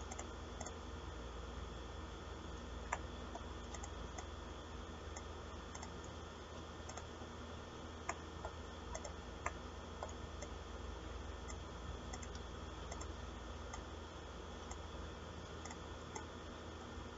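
Computer mouse clicks, sporadic and faint, over a steady low hum.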